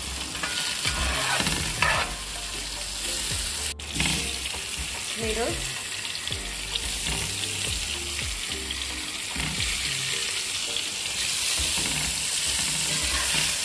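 Sliced onions, green chillies and tomato sizzling as they sauté in butter and olive oil in a frying pan, stirred now and then with short scrapes against the pan.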